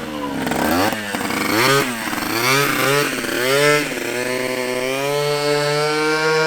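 Single-cylinder four-stroke 150cc GY6 scooter engine revving up and down several times, then rising slowly and holding a steady higher pitch near the end.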